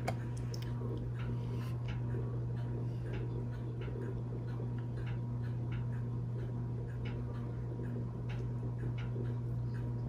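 Steady low hum with many faint, irregular ticks and clicks over it.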